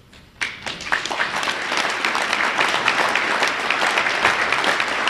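Audience applauding, a dense patter of many hands clapping that starts about half a second in and keeps on steadily.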